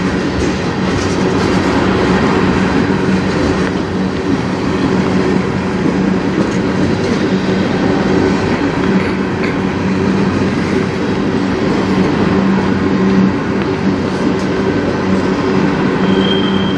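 CN manifest freight train rolling past, its cars making a steady rumble and clatter of wheels on the rails, with a brief high squeal near the end.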